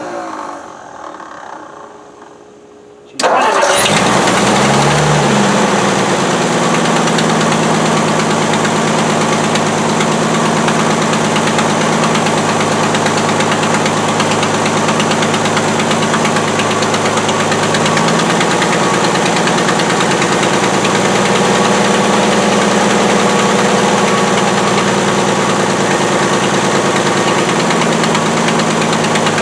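1960 Edsel Ranger's engine: after a quieter, fading stretch it comes in loud about three seconds in, rises briefly in pitch, then runs steadily. The car has been struggling to keep running because of fuel trouble.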